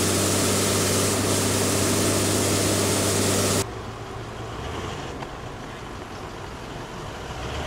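A loud steady engine hum under a rushing noise, cutting off abruptly about three and a half seconds in. Then the quieter low running of a Toyota Land Cruiser SUV's engine as it rolls slowly by.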